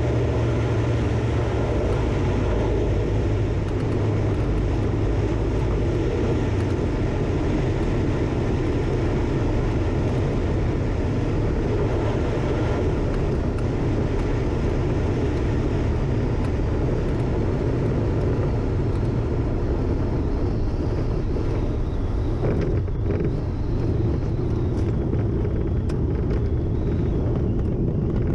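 Cabin noise of a Dynamic WT9 light aircraft: the piston engine and propeller drone steadily with airflow noise through the final approach and the landing roll.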